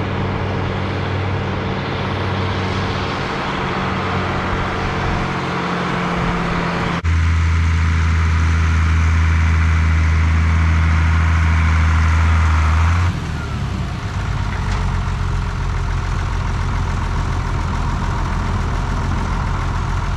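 Heavy farm machinery engines running steadily. About seven seconds in the sound switches abruptly to a louder, deep hum, and it changes abruptly again about thirteen seconds in.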